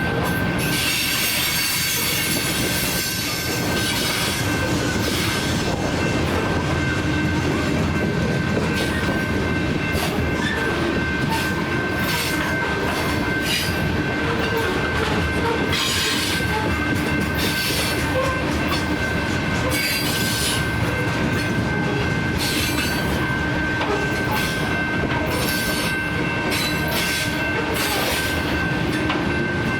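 Freight cars of a loaded potash train rolling past at track side, with steady wheel-on-rail noise, a thin continuous high squeal from the wheels, and irregular clicks over the rail joints.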